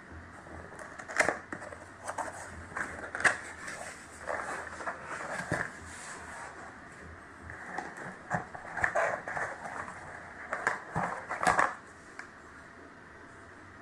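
Packaging being handled at close range: irregular crinkling and rustling with sharp clicks and snaps, stopping shortly before the end.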